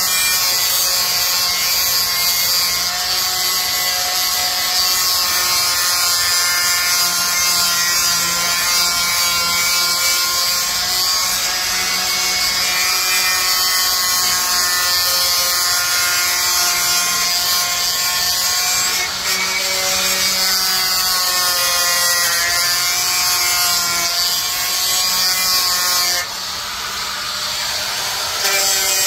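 Corded electric drill running under load as its bit bores a hole through a small steel plate, the motor's whine wavering in pitch as the bit bites. The sound eases for a moment near the end, then picks up again.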